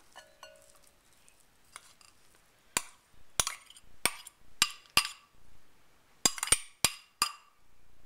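A metal spoon clinking against the bowls as canned tuna is scraped out of a small ceramic bowl into a glass Pyrex bowl: about nine sharp clinks in two quick runs, the first a little before halfway and the second near the end.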